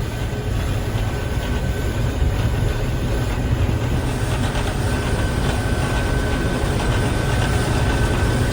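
Combine harvester running while cutting wheat: a steady low drone of engine and threshing machinery heard from inside the cab. A faint steady high whine comes in about halfway through.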